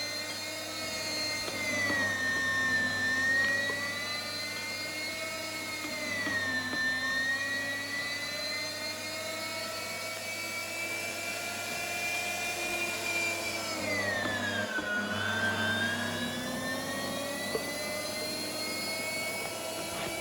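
Electric meat grinder motor running with a whine whose pitch sags and recovers several times as it grinds nut cookies, dipping lowest about fifteen seconds in.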